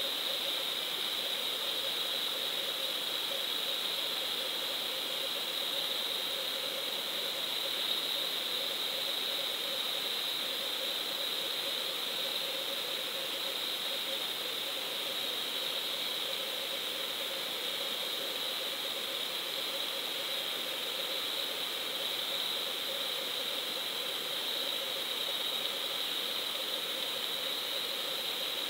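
Steady, unchanging hiss with a constant high tone and a fainter low hum, as picked up by a GoPro's microphone sealed in its waterproof housing underwater.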